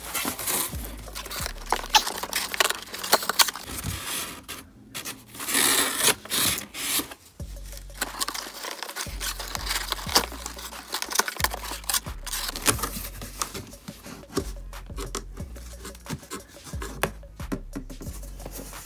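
Corrugated cardboard box being opened by hand: flaps and an inner divider rubbing, scraping and tearing, with scattered clicks and rustles of the packaging inside.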